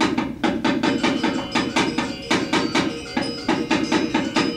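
Balinese gamelan metallophone (gender wayang) playing a fast interlude between scenes of a shadow-puppet play: rapid repeated strikes on bronze keys, the notes ringing on between strokes.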